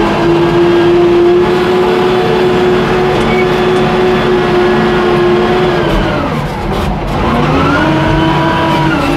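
A W20 wheel loader's diesel engine running steadily at working revs. About six seconds in, the engine note drops for a moment and then climbs back up.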